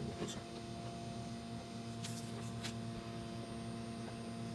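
Steady hum from an idling Anet A8 3D printer, its cooling fan and electronics running with the hotend and bed heated, with a few faint ticks about two seconds in.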